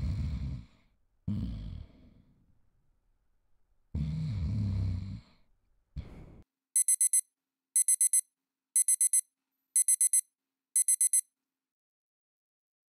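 A man snoring loudly in several long breaths. Then an electronic phone alarm beeps in five quick bursts of about four beeps each, one burst a second, and stops.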